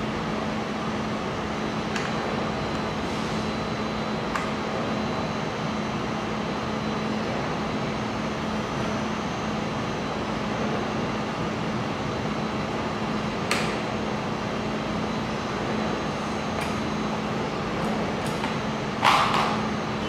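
Steady hum and fan noise of a mold laser welding machine running, with a low steady tone under it. A few light clicks and a louder knock near the end come from the monitor on its swivel arm being handled.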